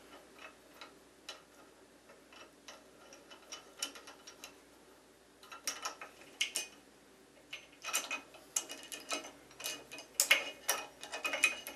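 Light metallic clicks and ticks of a bolt and washer being started and turned by hand on a Shopsmith lathe tool rest. The clicks are sparse at first, then come in quicker clusters through the second half.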